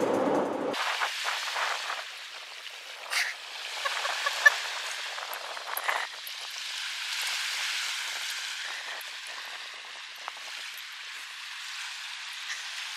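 Van road rumble that cuts off less than a second in, then dogs digging in loose sand: a golden retriever puppy and a bigger dog scraping and pawing, heard as a steady scratchy hiss with a few sharp clicks.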